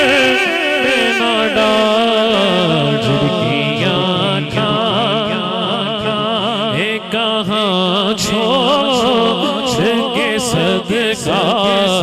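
A man singing a naat into a microphone through a sound system: one long held note that slides down, then wavering, ornamented melodic runs.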